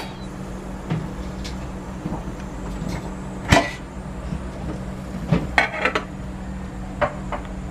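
Stainless-steel idli steamer lid being lifted off and handled: sharp metal knocks and clinks, the loudest about halfway through and a small cluster of clinks soon after, over a steady low hum.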